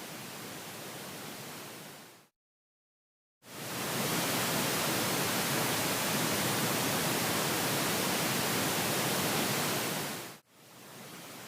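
Pink-noise speaker test signal, played as separate steady hiss segments at different levels. The first fades out about two seconds in, followed by a second of dead silence. A louder segment starts about three and a half seconds in, runs for about seven seconds and fades, and then quieter noise returns near the end. This is the pattern of a surround-sound channel test stepping from one speaker to the next.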